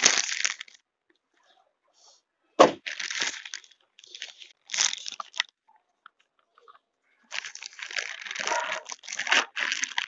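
Clear plastic parts bag crinkling and rustling in the hands in several short bursts, with a sharp click about two and a half seconds in and a longer stretch of rustling over the last few seconds.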